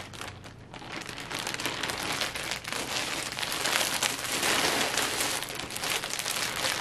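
Clear plastic packaging bags crinkling as a wrapped costume is lifted out of a plastic mailer and handled: a dense crackle that builds about half a second in and is loudest around four to five seconds in.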